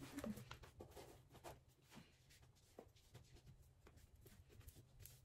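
Near silence: faint scattered rustles and soft ticks of clothing being handled and pulled on, over a steady low room hum.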